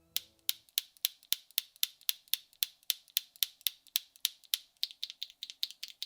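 Keystrokes on a KBDfans Odin V2 96% custom mechanical keyboard fitted with lubed Akko V3 Cream Yellow linear switches, a PC plate and double-shot PBT keycaps: evenly spaced sharp clacks, about four a second, coming a little quicker near the end. A short tail of music fades out at the very start.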